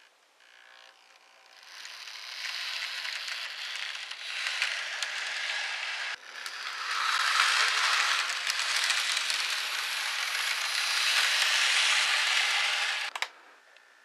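Bandai B-Train Shorty N-gauge model of the Odakyu 10000 series HiSE running along the track with a rattling mechanical running noise. It builds up over the first few seconds, is loudest while the train is close, and cuts off suddenly about thirteen seconds in.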